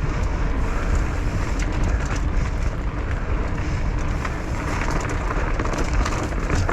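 Downhill mountain bike at speed: a steady rumble of tyres rolling over the course, with many quick rattles and clicks from the bike, recorded close on a bike or rider mounted GoPro with a wind-foam cover.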